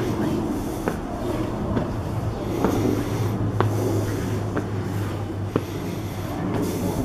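Footsteps climbing concrete station stairs, about one step a second, over a steady low hum.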